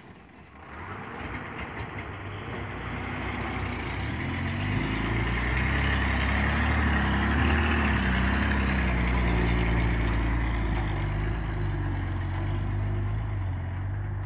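A heavy cargo truck's diesel engine pulling away under power and driving past. The engine note grows louder as the truck comes close, and its pitch shifts in the middle. It eases off a little as the truck moves away.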